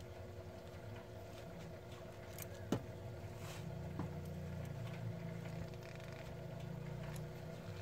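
Faint handling noise of stuffing being packed into a small crocheted piece with a metal tool, over a steady low hum. One sharp click comes about three seconds in and a softer one a second later.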